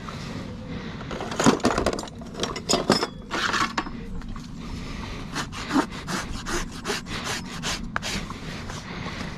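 A farrier's rasp scraping across a horse's hoof in repeated strokes: a few irregular strokes at first, then a quicker, steadier run of about three strokes a second.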